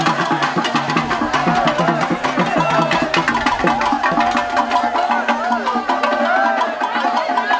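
Music with fast percussion, wood block and drums, and voices singing over it.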